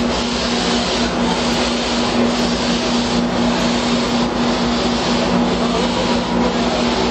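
Vintage passenger cars of a steam excursion train rolling past: a steady rolling noise with a constant low hum under it.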